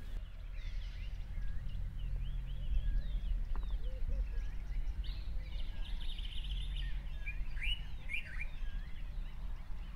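Bushveld ambience: many small birds chirping with short rising and falling calls over a low steady rumble, with a buzzy trill for a couple of seconds about five seconds in and louder chirps near eight seconds.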